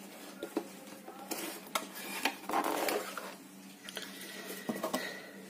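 Cardboard box being opened by hand: scattered light clicks and taps from the flaps and box, with a longer scraping rustle near the middle as the lid is pulled open.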